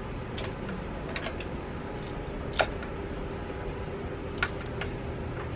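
Plastic electrical plug connectors and wiring being handled and pulled apart: a few scattered small clicks and ticks, the sharpest about two and a half seconds in, over a steady low hum.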